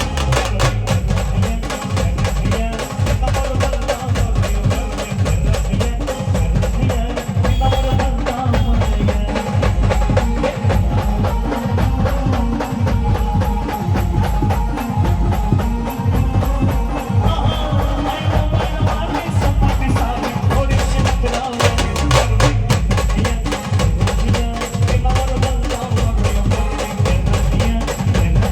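Maharashtrian band playing a dance song: a held melody over a steady, heavy drum beat.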